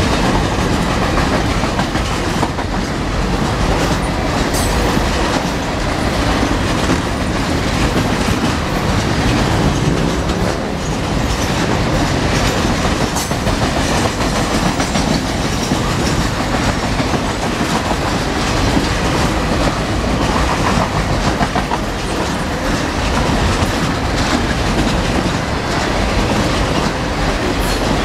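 Freight train of boxcars rolling steadily past, with the steady noise of its steel wheels on the rails and repeated clicking as the wheels cross the rail joints.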